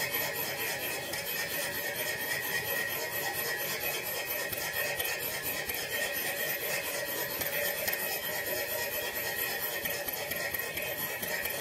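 Model Stirling engine running steadily on its burner flame: a fast, even rasping whirr from its piston, crank and spinning flywheel.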